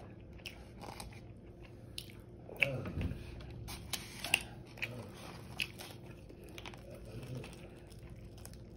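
A person biting into and chewing crispy air-fried chicken wings, with sharp, irregular crunches that are thickest in the middle of the stretch.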